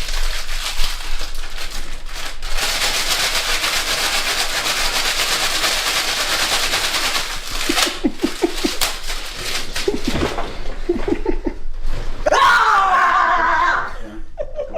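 A long, even hissing noise for about seven seconds, then a person giggling in short bursts twice, and a loud, high scream near the end.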